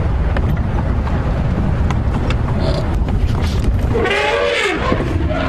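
Safari game-drive vehicle's engine running with a steady low rumble. About four seconds in comes a brief call that rises and falls in pitch.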